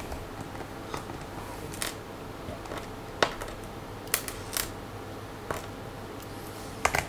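Small Phillips screwdriver working the bottom-cover screws of a Toshiba Tecra Z40-B laptop: scattered light clicks and taps as the tip seats in and turns the screws, about seven in all, with a close pair near the end.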